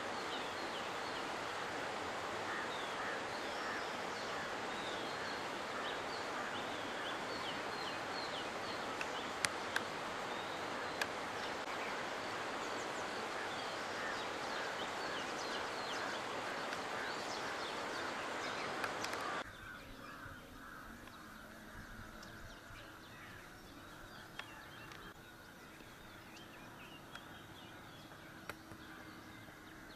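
Shallow stream running over rocks, a steady hiss of water with many short bird chirps over it. About two-thirds of the way through it cuts suddenly to a quieter outdoor ambience with scattered bird calls.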